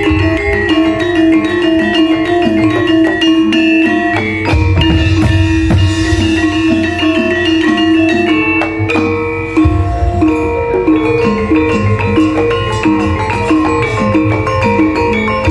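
Javanese gamelan playing: bronze metallophones and gongs struck in fast interlocking patterns over kendang drum beats. The pattern shifts about nine seconds in.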